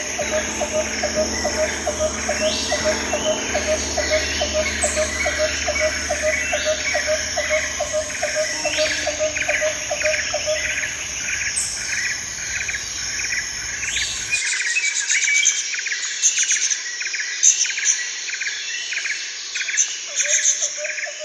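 Jungle ambience: a steady high insect drone under many repeated bird calls, with a lower call pulsing about two to three times a second that fades out about halfway. A low background rumble cuts off suddenly about two-thirds of the way in.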